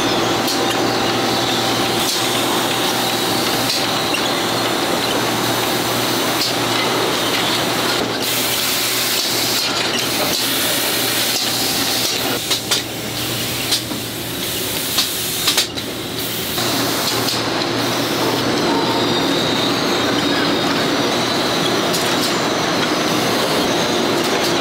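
Steady factory machinery noise from a cookware coating line, with a continuous high metallic squeal over a mechanical hum. The sound shifts in the middle, with a few short knocks and dropouts.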